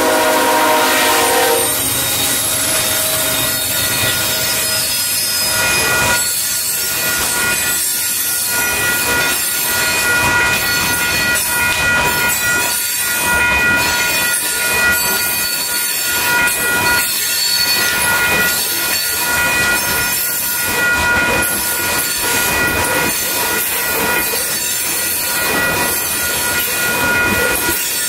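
Freight train horn sounding and cutting off about a second and a half in, then loaded hopper cars rolling past with clattering wheels and a steady high-pitched wheel squeal.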